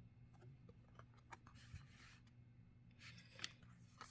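Faint rustling and sliding of trading cards being handled and flipped through, with a small click about three and a half seconds in, over a low steady hum.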